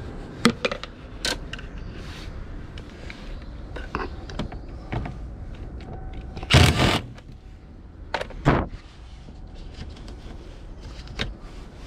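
Cordless drill with a socket attachment running in short bursts to undo wheel-arch liner screws: a longer run of about half a second, then a shorter one about two seconds later, with sharp clicks and taps of tool and plastic in between.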